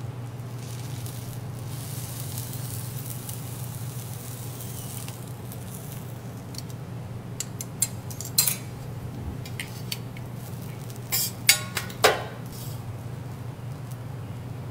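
Kimchi fried rice sizzling on a steel teppanyaki griddle while it is packed into a metal ring mold, over a steady low hum. In the second half, sharp scrapes and clinks of a metal spatula on the griddle plate come several times, a cluster of them near the end being the loudest sounds.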